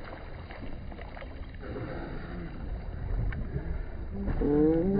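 Low, steady rumble and hiss of a boat under way at sea, with wind noise. Near the end a held, pitched sound with several tones begins.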